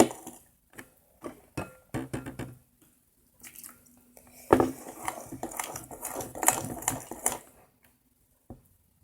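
A spoon scraping and clinking against a mixing bowl while stirring a thick, failed butter-slime mixture of glue, cornstarch and body wash. The stirring comes in irregular spells of clicks and scrapes, stops for about a second partway through, and ends with a single click.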